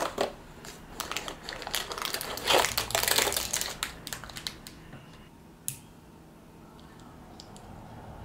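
Cardboard and packaging rustling and crinkling as a LEGO advent calendar door is opened and its contents taken out, then a sharp click and a few faint small plastic clicks as the minifigure pieces are handled.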